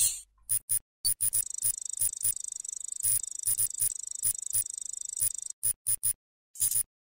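Electronic sci-fi interface sound effects for a loading animation: a string of short sharp blips, about three or four a second, with a steady high whine under them for about four seconds. They stop abruptly just before the end.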